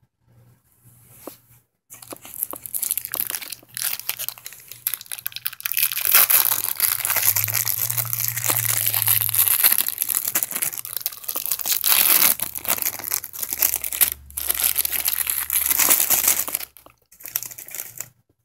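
Plastic wrapper of a cheese slice crinkling and rustling as it is handled and peeled open. The dense, close crackling starts about two seconds in, with a couple of brief pauses, and stops shortly before the end.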